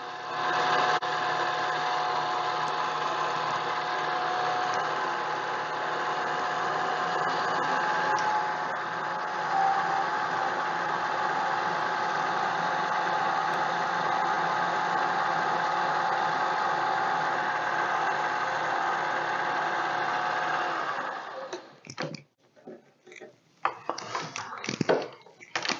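Mini lathe running steadily with a whining motor and gear tone while taking an oiled cut on a polycarbonate part; it shuts off about 21 seconds in, followed by a few scattered clicks and handling knocks.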